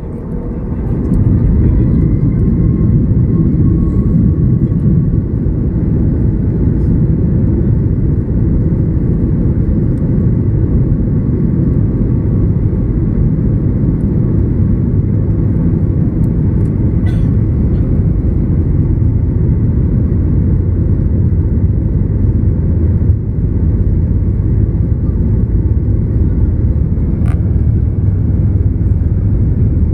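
Jet airliner's engines, heard from inside the cabin, spooling up to takeoff power about a second in, then a loud steady rumble of engines and wheels during the takeoff roll. A faint whine rises in the first few seconds.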